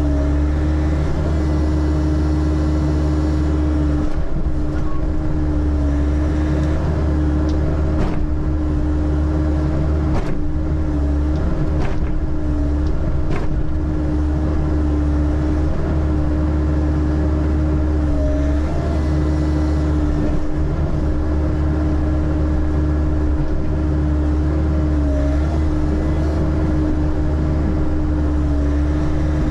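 Diesel engine of a bucket-equipped digging machine running steadily under work, with a few sharp knocks in the middle stretch.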